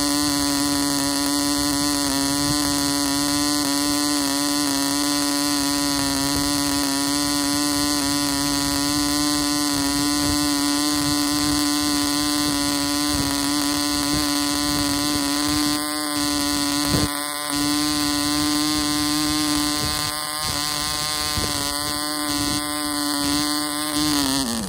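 Clanford Clan 0.24 cc model diesel engine running steadily at high speed on a Cox 5x4 propeller, giving a high-pitched buzz. Near the end its pitch begins to drop as the engine starts to run down.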